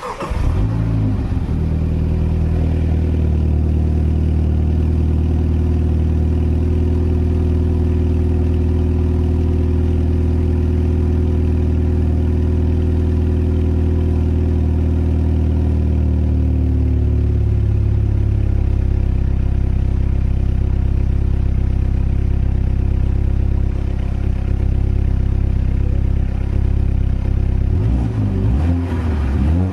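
Mini John Cooper Works F56's turbocharged four-cylinder engine and stock exhaust starting up with a brief flare, then idling steadily. The idle drops to a lower, steadier note about seventeen seconds in, and the engine is blipped a few times near the end.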